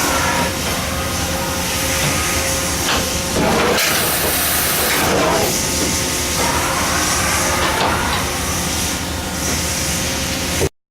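Okuma MA-60HB CNC horizontal machining center running: a steady mechanical drone with a whine that rises in pitch past the middle and a burst of hiss about four seconds in. The sound cuts off suddenly at the end.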